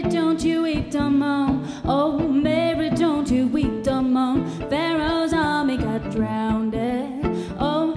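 A woman singing a melody, accompanied by a violin plucked pizzicato.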